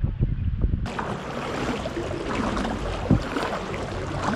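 Low wind rumble on the microphone, then, from about a second in, water splashing and dripping around a kayak, a dense hiss with many small sharp ticks.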